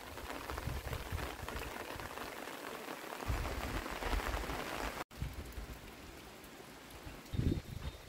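Steady rain falling, with irregular low rumbles of wind on the microphone. It turns quieter after a brief break about five seconds in.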